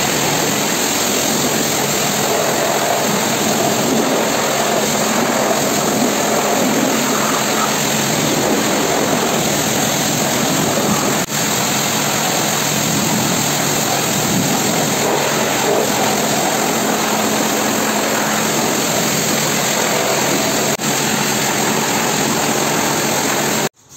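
High-pressure washer jet spraying water over a car's engine bay, a loud, steady hiss. It is rinsing off a dielectric engine cleaner after its soak time. The spray dips very briefly twice and cuts off abruptly just before the end.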